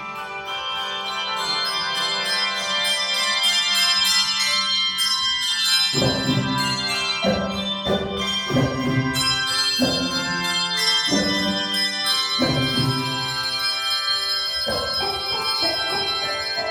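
Handbells playing a tune: ringing chords held at first, then struck afresh a little over once a second from about six seconds in, each ringing on as it fades.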